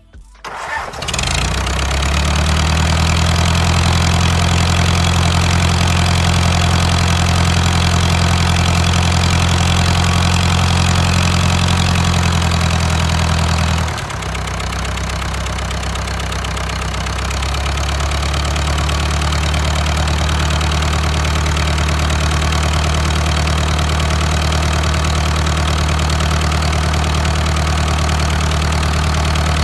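Diesel engine starting about a second in and settling into a steady idle. Around halfway its speed and level drop briefly, then pick back up. The engine is running after its injection pump timing has been set.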